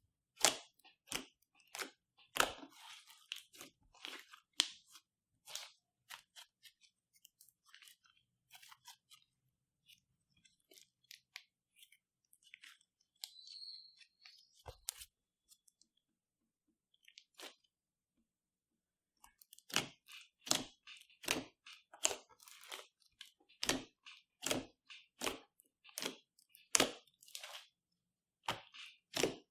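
Clear slime being squeezed and kneaded by hand, giving a run of sharp crackling clicks and pops. The clicks thin to a scattered few for a stretch in the middle, then come thick again in the last ten seconds.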